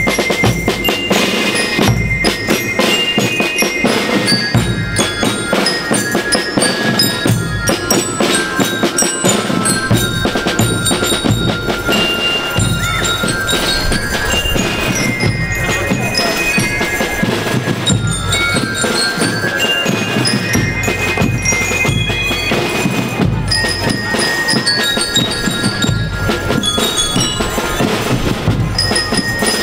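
School rhythm band playing a melody on bell lyres over snare and bass drums, the lyres' bright metal bell notes carrying the tune.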